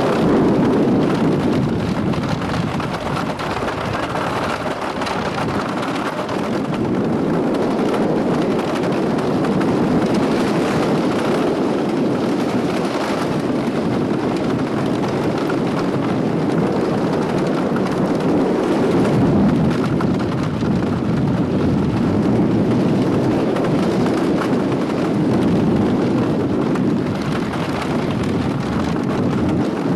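Wooden roller coaster train running at speed along its track, heard from aboard: a steady, heavy rumble and clatter of the wheels on the wooden structure.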